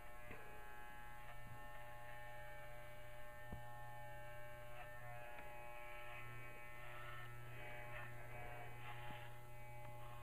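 Electric dog clippers running with a steady hum as they shave through a dog's fur.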